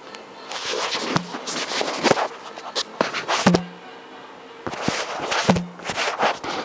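Handling noise close to the microphone: irregular rustling and scraping with several sharp clicks, as the camera is moved and set down.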